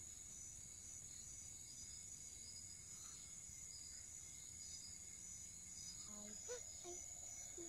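Faint evening chorus of tropical insects: a steady high-pitched drone with a pulsing trill beneath it.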